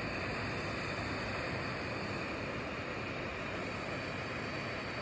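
Heat gun blowing hot air onto a circuit board to reflow solder: a steady rushing hiss with a faint constant whine.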